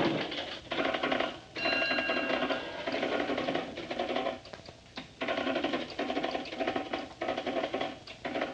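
A fast mechanical clatter or ringing, going in stretches of about a second with short breaks.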